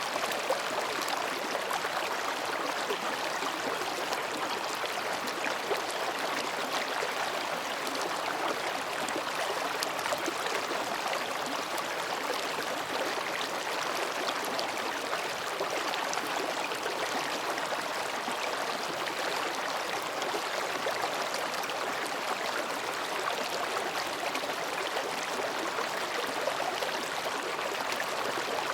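Mountain stream flowing between rocks: a steady babbling of water with no pauses.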